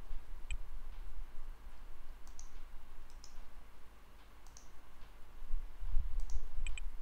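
A handful of light, sharp computer clicks spaced irregularly, with a quick double click near the end, over a steady low rumble from the microphone.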